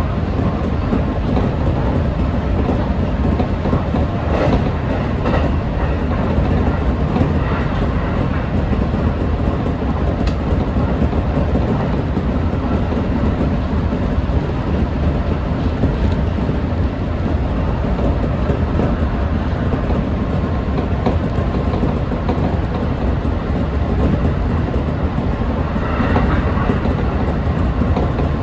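Electric passenger train running at speed, heard from inside the driver's cab: a steady rumble of wheels on rail with occasional clicks.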